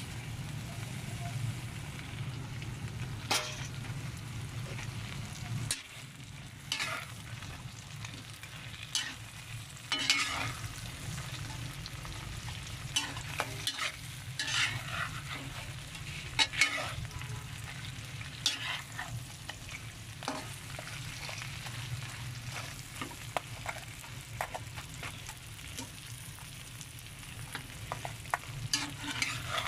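Whole shrimp frying in a metal pot, sizzling while a metal spoon stirs them, with repeated scrapes and clinks of the spoon against the pot over a steady low hum.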